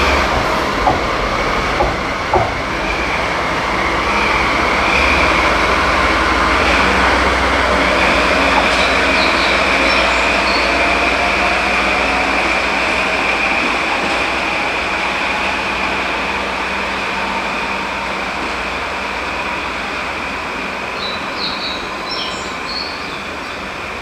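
DD16 diesel-hydraulic locomotive running light as it pulls away, its engine and running noise slowly fading, with a steady high wheel squeal on the curved station track. A few sharp clacks over rail joints come in the first few seconds.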